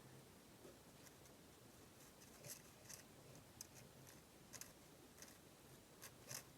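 Near silence: room tone with a few faint, brief clicks and taps from small handling.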